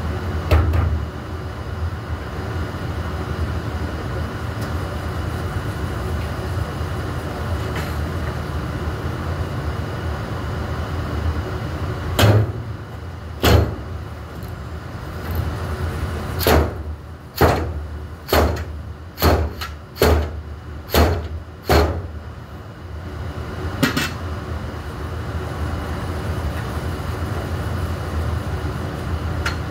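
A string of about a dozen sharp knocks and clanks from workers handling a long metal pole and a metal panel enclosure, most of them bunched together in the middle, over a steady low equipment hum.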